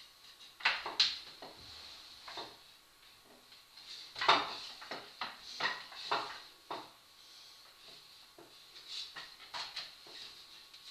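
Wooden rungs of a rope ladder knocking and clattering against the wall as a person hauls himself up it, in irregular knocks, the loudest about four seconds in.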